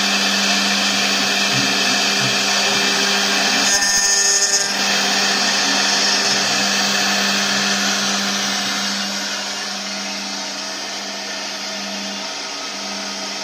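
CNC router spindle milling aluminium: a steady tool whine over a cutting hiss, with a brief harsher burst about four seconds in. It gets somewhat quieter from about eight seconds on.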